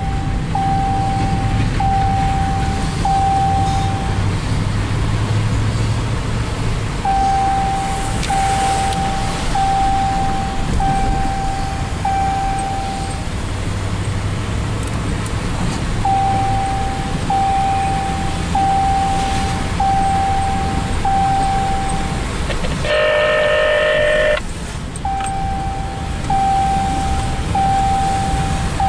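Steady road and engine noise inside a car driving on wet road in rain, with an electronic chime repeating about once a second in runs of several. About 23 seconds in, a loud horn blast lasts about a second and a half.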